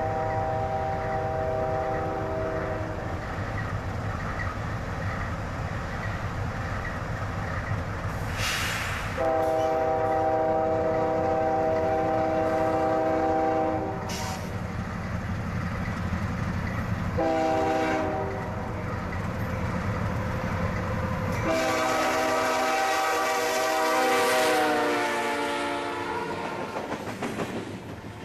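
Canadian Pacific GE AC4400CW diesel locomotives sounding a multi-note air horn over the steady rumble of their engines: long, long, short, long, the grade-crossing signal. The last long blast drops in pitch as the lead unit passes, and the grain hopper cars then roll by.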